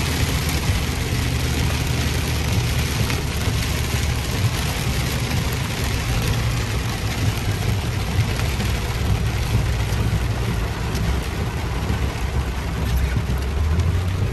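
Heavy rain on a car's roof and windshield, heard from inside the cabin, over the steady low drone of the engine and tyres on the wet road.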